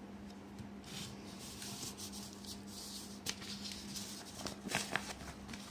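Paper rustling and scraping with handling noise as the sheet of paper or the camera over it is moved, starting about a second in, with a few sharp clicks in the second half. A steady low hum runs underneath.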